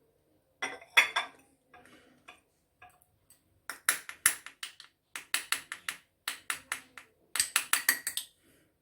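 A teaspoon clinking against a small bowl in short runs of quick taps as honey is transferred into it.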